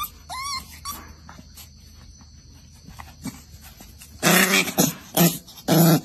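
A dog vocalizing: a few short, high, wavering whines at the start, then a run of loud, rough barks or growls from about four seconds in.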